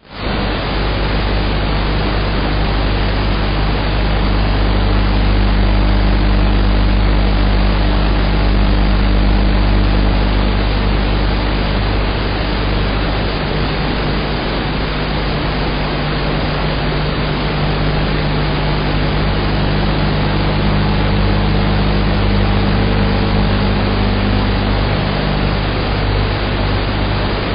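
A 7-inch FPV quadcopter's motors and propellers running in flight: a steady, loud buzzing hum whose pitch drifts a little with throttle, under a dense hiss.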